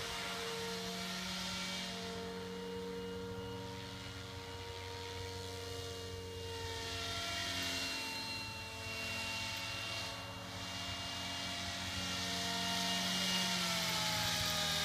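MSH Protos 500 electric RC helicopter flying overhead: a steady whine from its brushless motor and rotor, with the blade whoosh swelling and fading as it manoeuvres. The pitch slides down a little near the end.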